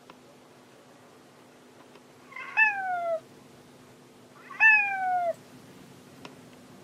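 A domestic cat meowing twice, about two seconds apart; each meow is drawn out and slides down in pitch.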